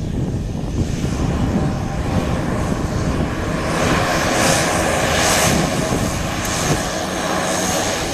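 Single-engine propeller plane taxiing close past, its engine and propeller noise swelling as it goes by, loudest about four to five seconds in.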